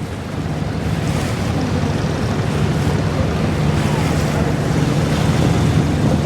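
Abra water taxi's engine running steadily as a low drone, with water rushing past the hull and wind buffeting the microphone.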